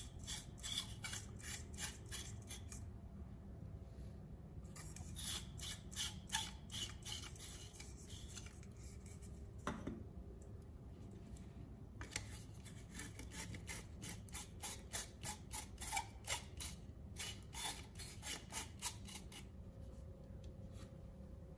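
Quick runs of small plastic clicks and scraping as an LED bulb's metal screw base is twisted in and out of a plastic screw-in lamp socket, in several bursts.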